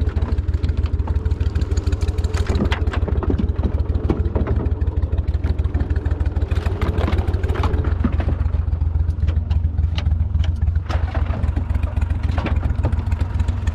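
Boat motor running steadily at low speed, with scattered clacks and knocks as decoys are gathered in.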